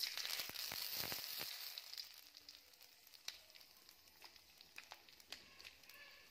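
Green bay leaves and whole garam masala spices frying in hot oil in an aluminium kadai: a loud sizzle that starts the instant the leaves hit the oil and fades over about two seconds into a softer sizzle with scattered pops and crackles.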